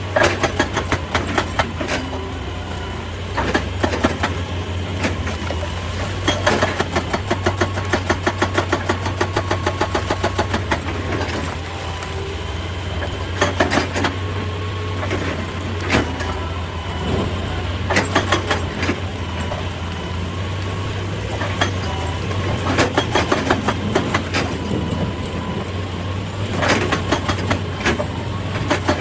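Excavator engine running steadily, with repeated spells of rapid clattering knocks and several louder single bangs.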